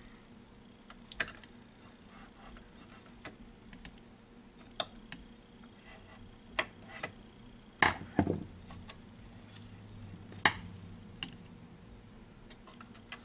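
Screwdriver tip clicking and scraping against the metal chassis, brake drum and pulleys inside a Teac A-4010S reel-to-reel deck while a drive belt is fished into place. The clicks come irregularly, the loudest about eight and ten and a half seconds in.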